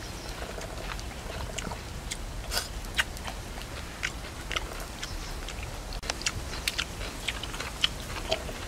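A man chewing and biting a mouthful of food close to the microphone, with irregular sharp clicks and crunches.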